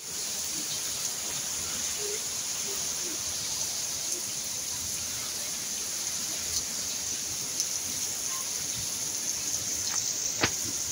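Heavy rain shower falling steadily, an even, unbroken hiss of rain. A single sharp click comes near the end.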